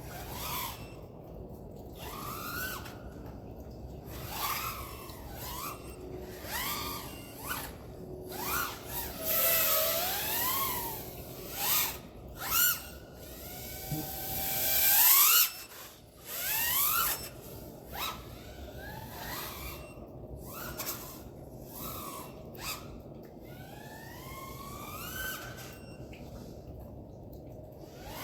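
Brushless motors and 3.5-inch props of a 6S FPV freestyle quadcopter whining, the pitch sweeping up and down sharply with each throttle burst. The loudest is a long climbing whine about fifteen seconds in that cuts off suddenly.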